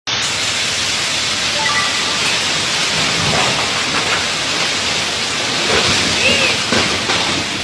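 Heavy hurricane rain pouring down as a loud, steady hiss, with faint voices near the end.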